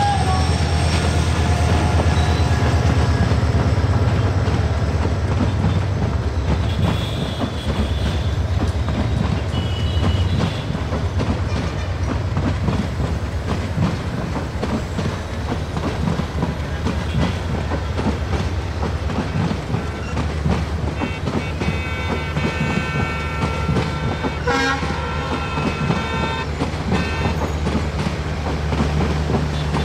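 Diesel-electric locomotive hauling a long passenger train, a steady low engine drone under the rattle and clatter of carriage wheels over rail joints and points. Thin high tones come and go in the second half.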